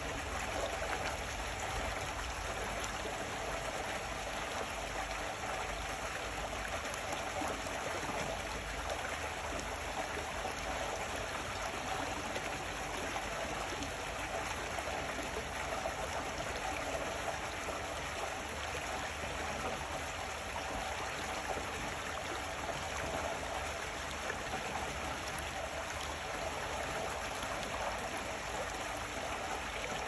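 Shallow stream water running in a sheet over a sloping rock face and splashing down a small rocky cascade: a steady, even rushing.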